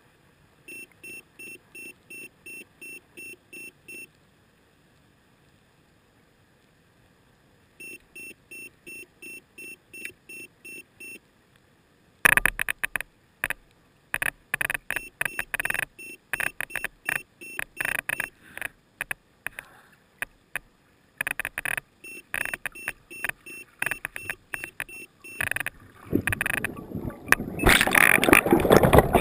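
Two runs of short, evenly spaced electronic beeps, about three a second, heard through a GoPro's waterproof housing while the camera lies underwater. After that come irregular knocks and clicks against the housing, and near the end a louder rush of splashing water as the camera is lifted out of the lake.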